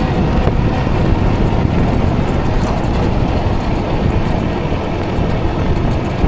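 Steady wind rush buffeting the microphone, mixed with road and tyre noise from a Ridstar Q20 electric bike riding along the road.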